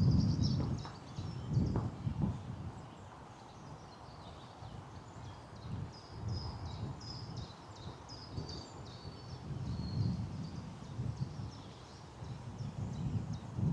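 Small birds singing, a run of short high chirping notes that is busiest in the middle, over irregular low rumbles near the start and end.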